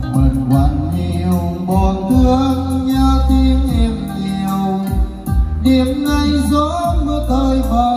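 Instrumental karaoke backing music with a heavy bass drum beat and sustained melody, played loud over a mixer-and-amplifier sound system.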